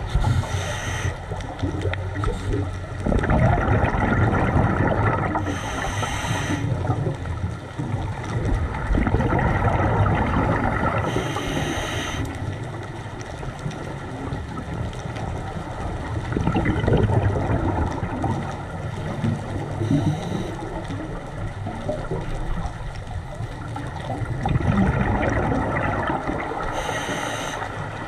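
Scuba diver breathing through a regulator underwater: a short hissing inhalation comes five times, every six to eight seconds. Each is followed by a long stretch of gurgling, rumbling exhaled bubbles.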